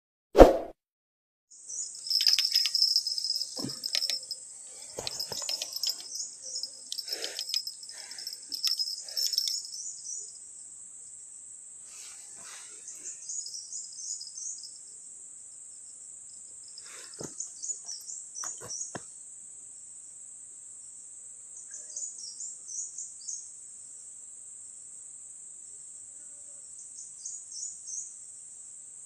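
Steady high-pitched drone of insects, crickets or cicadas, with repeated chirping calls over it. One sharp click about half a second in is the loudest sound, and there are scattered knocks and rustles in the first ten seconds and again briefly later on.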